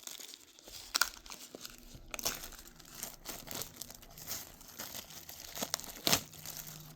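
Tough plastic wrap crinkling and tearing as it is pulled off a steelbook case, with several sharp snaps; the loudest comes near the end.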